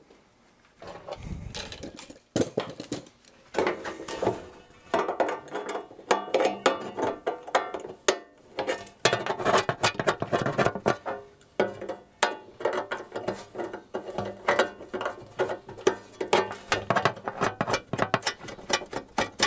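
Wrench working a fastener on a steel instrument chassis: quick, irregular metallic clicking and rattling that starts a few seconds in and goes on in bursts, with short pauses.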